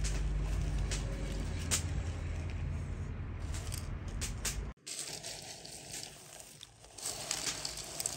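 Dried white mulberries rustling and clicking as hands stir, scoop and pick through them in an enamel bowl. A low background rumble runs underneath and stops abruptly about five seconds in.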